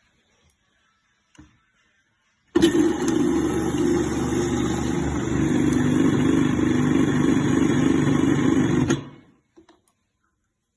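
Electric motor and pressing mechanism of an Espressions automatic citrus juicer running while it juices kiwi. It starts suddenly about two and a half seconds in, runs steadily with a humming whine, and stops about six seconds later.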